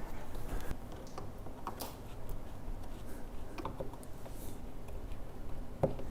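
Irregular light clicks and taps of compost tumbler parts being handled and fitted, with a sharper knock near the end.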